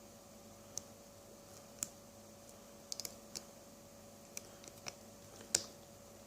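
Small, sharp clicks of a lock pick and tension wrench working inside a padlock's keyway, about ten of them at irregular intervals, the sharpest about five and a half seconds in, over a faint steady hum.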